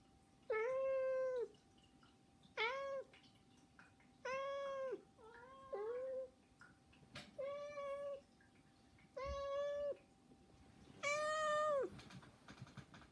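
Domestic cat meowing over and over to beg for food: about seven drawn-out meows, one every second or two, the last one the longest.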